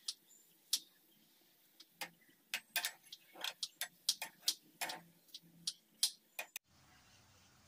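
Irregular sharp clicks and taps, over a dozen in a few seconds, stopping abruptly near the end where the sound cuts to a faint steady background.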